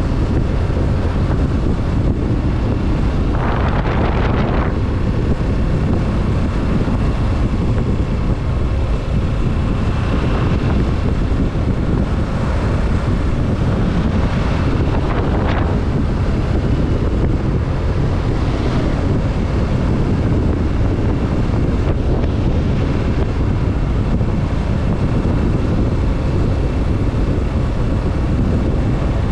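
Kawasaki Z650 motorcycle riding at speed: heavy wind rushing over the microphone, with the bike's parallel-twin engine running steadily underneath. A brief louder rush comes about four seconds in.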